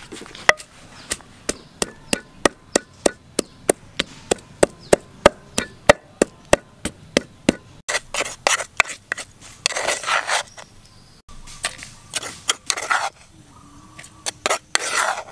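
A wooden pestle pounds lemongrass in a mortar, making steady sharp knocks about three a second. After about eight seconds it gives way to longer scraping and grinding strokes as the crushed paste is worked, and the paste is scraped out near the end.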